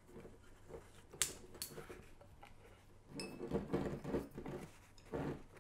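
Quiet handling of a rubber balloon fitted over a glass bottle's neck: a light tap about a second in, then short squeaky rubbing sounds as the balloon is twisted and lifted upright to tip baking soda into the vinegar.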